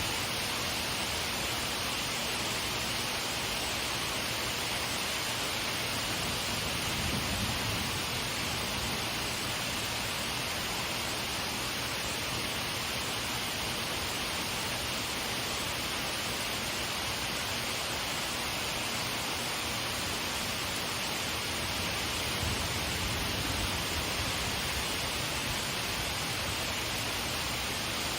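Steady rain shower falling, an even, unbroken hiss.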